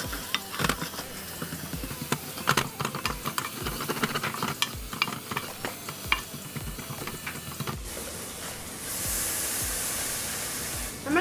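Sliced onions frying in hot coconut oil with ginger-garlic paste, sizzling, while a spoon stirs them and knocks against the pan irregularly. About eight seconds in the stirring stops and only a steady sizzle goes on.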